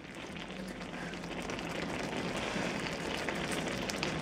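Carrot halwa with milk and condensed milk bubbling in a wide steel pan on the stove, a steady fine crackle of small popping bubbles that grows slightly louder.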